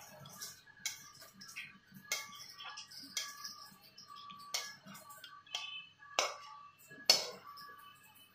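Metal spatula scraping and knocking against a kadai and a steel serving bowl as thick vegetable curry is served out, with a string of sharp clinks about a second apart, the loudest near the end.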